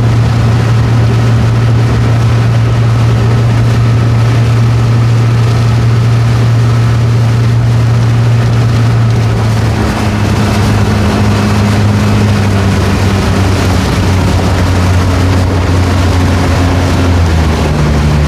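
Motorboat engine running steadily at cruising speed, a loud low hum; its pitch drops about halfway through and again near the end.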